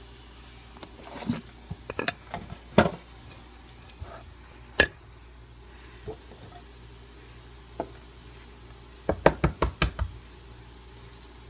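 Scattered sharp knocks and taps of eggs being cracked against a bowl, ending in a quick run of about six taps near the end.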